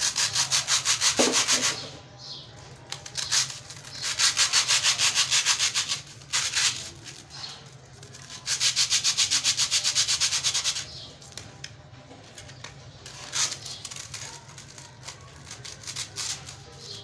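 Dry rusk biscuits being crushed and rubbed between the hands into crumbs, a fast dry scraping of about seven strokes a second. It comes in three runs of about two seconds each, with softer crumbling in between and near the end.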